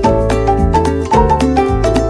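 Upbeat background music with a steady beat, a bass line and a bright plucked or mallet melody.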